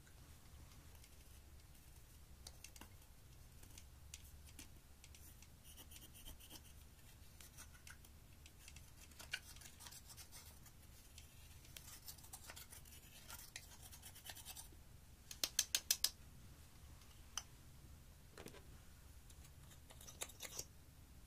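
Faint scratching as pressed gold eyeshadow is dug and crumbled out of its pan with a thin brush, with small ticks of the tool against the pan. About two-thirds of the way through comes a quick run of about five sharp taps.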